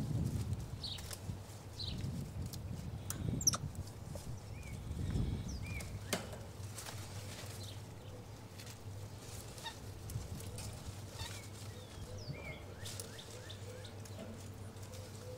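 Quiet outdoor ambience: birds chirping now and then, with scattered light clicks and rustling, low rumbling early on, and a faint steady hum that comes in about halfway through.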